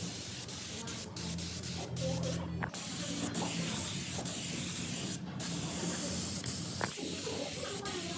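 Compressed-air tool hissing steadily, cut by brief breaks about two and a half and five seconds in. A low hum under it stops about two and a half seconds in.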